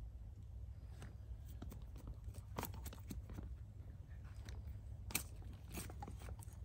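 German Shepherd dog crunching and chewing, with irregular crisp crunches about once or twice a second and a sharper snap about five seconds in, over a low steady rumble.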